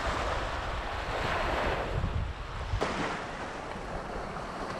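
Small waves washing onto a sandy shore, with wind rumbling on the microphone; a single brief click a little under three seconds in.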